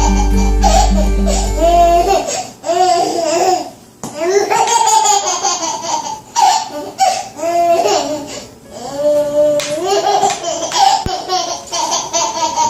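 Background music with a steady beat that stops about two seconds in, followed by a baby laughing in repeated high-pitched bursts.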